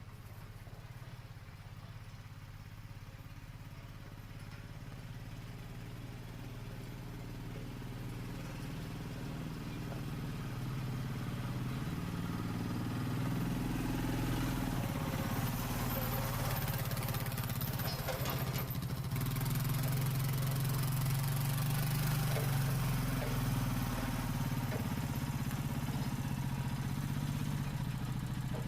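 An engine running steadily, gradually growing louder.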